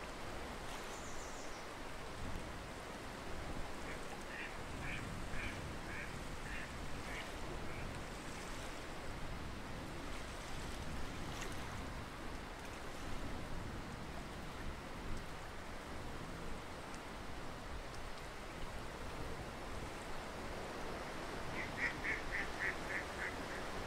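Ducks quacking in two runs of quick repeated calls, the first about four seconds in and a faster one near the end, over a steady background hiss.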